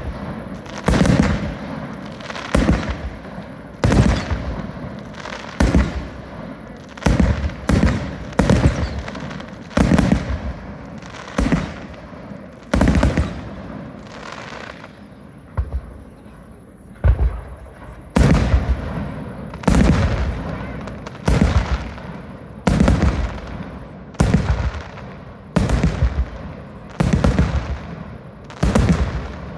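Aerial fireworks going off in a steady run of loud bangs, about one every second or so, each bang trailing off into a fading echo.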